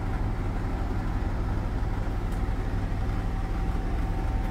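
Steady low machinery hum inside a motorhome, with a faint steady whine joining about halfway through.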